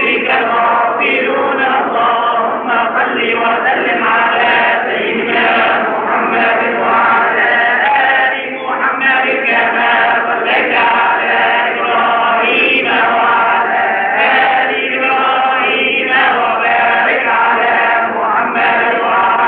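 A group of men's voices chanting together in sustained melodic phrases, with a short breath break about eight and a half seconds in.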